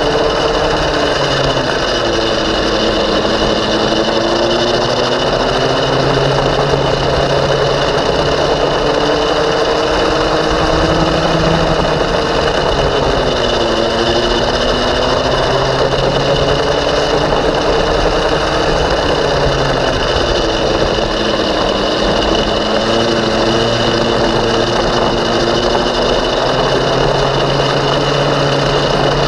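Racing kart's small single-cylinder engine running at speed close by, its pitch swinging up and down over and over, with the deepest dip about halfway through.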